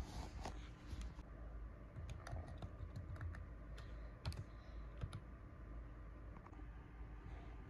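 Faint typing on a laptop keyboard: irregular key clicks, one louder click about four seconds in.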